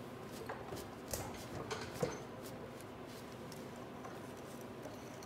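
A few faint metallic clicks and knocks of a hand wrench being worked on a motorcycle's front axle nut to crack it loose, the sharpest knock about two seconds in.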